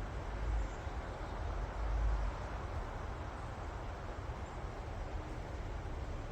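Wind in forest trees: a steady rustle of leaves over a low rumble that swells in two gusts, about half a second and two seconds in.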